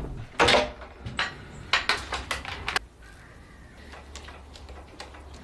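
Mountain bike parts and tools being handled during assembly: a quick series of sharp metallic clicks and clinks, then a quieter stretch from about three seconds in with only a low hum.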